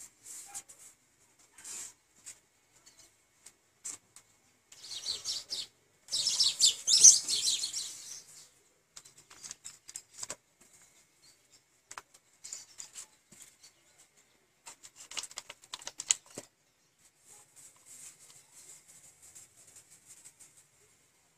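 A hand rubbing and smearing wet paint across a painting board: short scratchy strokes and scuffs, with a louder stretch of rapid rubbing from about five to eight seconds in.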